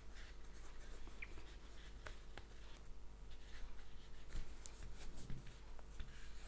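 Faint scratching and rustling of a crochet hook working T-shirt yarn, with light scattered ticks as loops are pulled through and the yarn tail is crocheted over.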